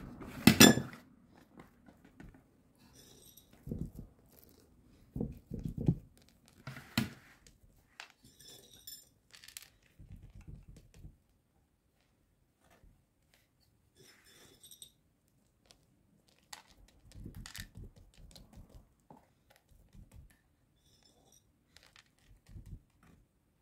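Scattered soft knocks, taps and rustles of hands pressing pumpkin seeds into rounds of dough on an oven baking tray, with one louder knock about a second in.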